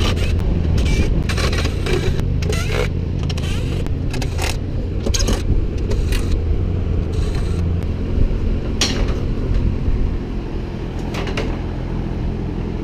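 Short runs of a DeWalt 20V cordless driver with sharp metallic clicks and knocks at irregular moments, as screws and bolts are backed out of a truck's grille and bumper brackets. Under it all is a steady low rumble.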